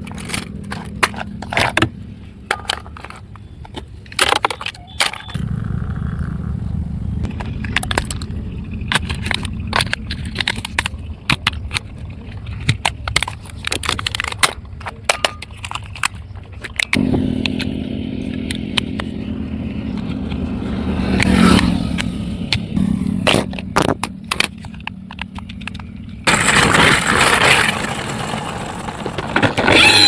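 Sharp clicks and knocks of plastic toy cars, a toy remote control and batteries being handled, over a steady low hum. Near the end a louder, rushing whir sets in.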